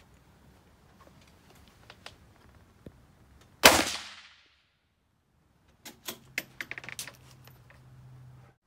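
A single rifle shot about three and a half seconds in, a sharp crack that dies away over about half a second. A couple of seconds later comes a quick run of sharp metallic clicks and rattles as the rifle is handled.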